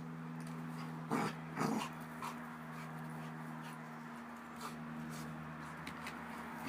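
Border collie making playful vocal noises: two short sounds close together about a second in.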